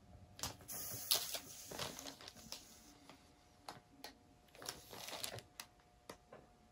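Crinkling, rustling handling noise with scattered sharp clicks, in two spells, from gloved hands and plastic being moved around the paint spinner as it is brought to a stop.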